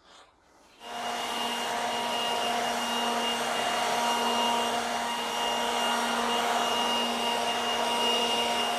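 Handheld leaf blower switched on about a second in and then running steadily: a loud rush of air with a steady whine over it.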